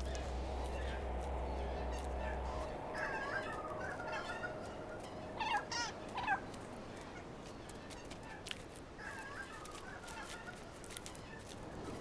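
Megapode calling: several short fowl-like calls in small groups, the loudest pair about halfway through. A faint low hum runs under the first couple of seconds and then stops.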